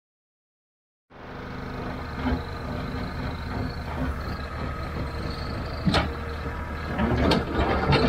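Silence for about a second, then a loader's engine running steadily, with a few sharp knocks over it.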